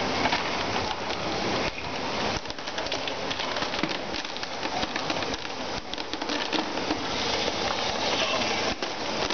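Small lumps of coal pouring steadily from a coal feeder's discharge outlet into a plastic basin: a dense, continuous patter of many small impacts.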